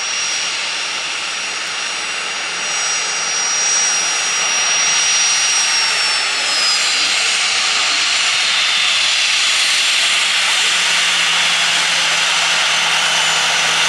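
Boeing 737-900ER's CFM56-7B jet engines running at low thrust while the airliner taxis, a steady rushing whine that grows louder about four seconds in. A thin high whine slides down in pitch a little after six seconds in.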